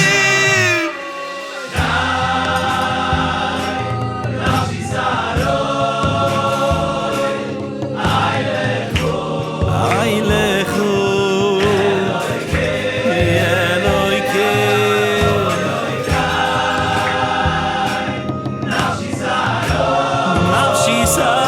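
Male choir singing over instrumental backing. The music dips briefly about a second in, then the choir comes back in full.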